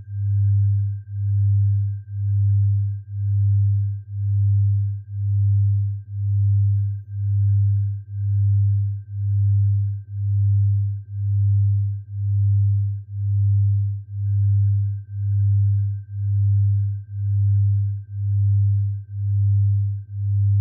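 Low electronic sine tone pulsing evenly about once a second, with a faint steady high tone above it: a tinnitus sound-therapy tone.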